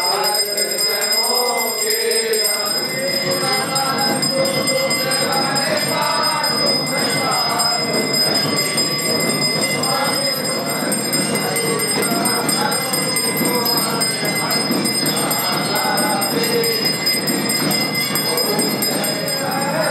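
Continuous devotional music: voices singing together over steady jingling percussion.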